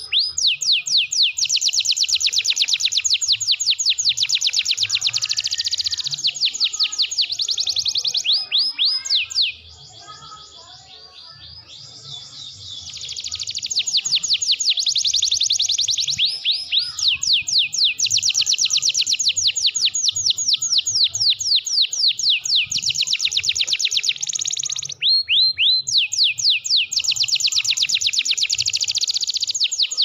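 Domestic canary singing long rapid trills of repeated downward-swept notes, one roll running into the next, with a pause of about three seconds around a third of the way through before the song picks up again.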